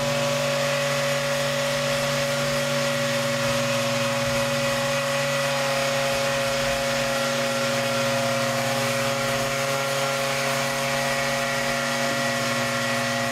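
Handheld Rapid Release vibration therapy device running steadily on a tight muscle: an even motor hum that holds the same pitch throughout.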